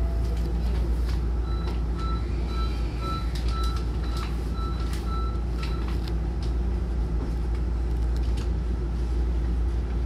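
Inside a Hankyu train car with its doors shut: a steady low hum from the train's equipment, with scattered clicks and knocks. From about one and a half seconds to six seconds in, short electronic beeps repeat about twice a second.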